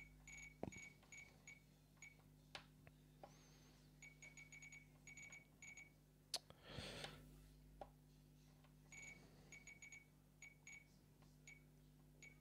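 Radiomaster Boxer radio transmitter giving faint, short, high beeps as its buttons are pressed. They come in quick runs of several a second with pauses between, as a model name is entered character by character.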